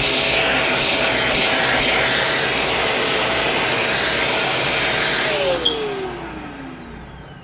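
Shark vacuum cleaner with its crevice tool running steadily, then switched off about five seconds in with a click, its motor whine falling in pitch as it spins down.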